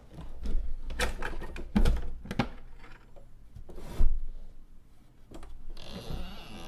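A wooden drawer pulled open and hands rummaging through CDs and papers inside it: a run of separate knocks and plastic clicks, the sharpest about four seconds in. Near the end a steady hiss comes in.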